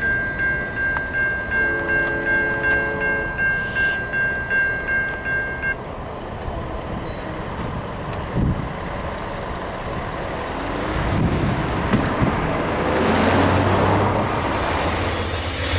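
Low-pitched Safetran Type 3 electronic crossing bell ringing at about two strokes a second, then stopping suddenly about six seconds in as the crossing gates start to rise. After that, cars and trucks drive across the crossing, their tyre and engine noise building toward the end.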